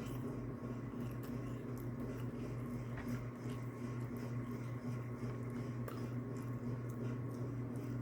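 Steady low hum with a faint thin tone above it and scattered faint clicks.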